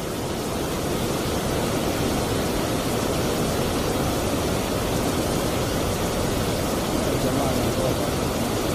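A fast-flowing, muddy river rushing over boulders and small rapids: a steady, even rush of water.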